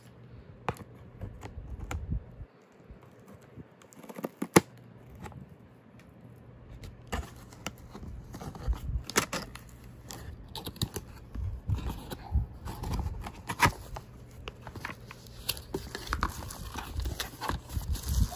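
A cardboard box of a UV LED nail lamp being opened by hand: tape and flaps tearing and scraping, and the wrapping inside rustling and crinkling. The sounds come as scattered sharp clicks and knocks, the sharpest about four and a half seconds in.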